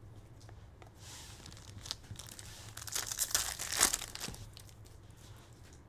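A foil trading-card pack wrapper being torn open and crinkled by hand. The crackling starts about a second in, is loudest between three and four seconds in, then dies away.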